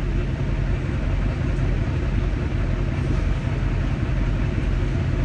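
Semi-truck diesel engine running steadily, an even low rumble.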